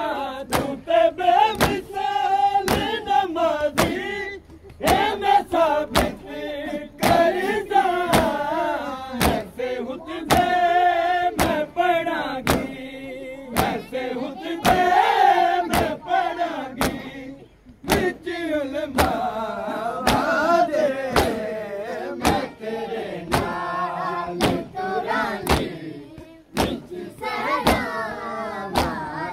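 A crowd of men chanting a noha, the Shia lament, together, over a steady beat of hands striking chests in matam, about one to two strikes a second.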